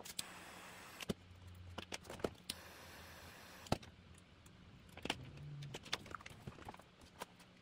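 Faint, scattered light clicks and taps of metal on metal as keys are taken off a Buescher tenor saxophone, with the technician's small tools handling the keywork and key rods so that worn pads can be replaced.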